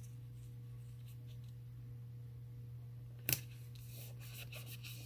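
Fingers pressing and rubbing a clear sticker down onto a paper planner page: faint ticks at first, a single sharp tap a little past three seconds in, then soft scratchy rubbing. A steady low hum runs underneath.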